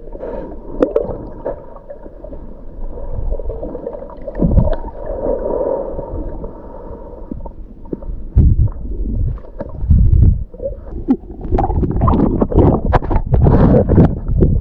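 Muffled gurgling and bubbling of river water heard through a camera held under the surface, with low thumps. From about eight seconds in it turns to louder splashing and churning water.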